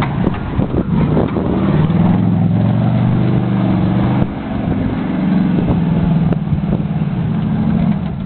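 An old Buick sedan's engine revving hard and held at high revs as the car spins donuts in loose dirt, its rear wheels spinning and throwing dirt. The revs drop briefly just after four seconds in, then climb and hold again.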